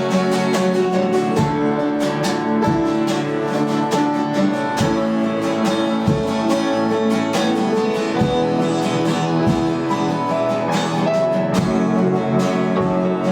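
Instrumental music with plucked and strummed guitar playing steadily.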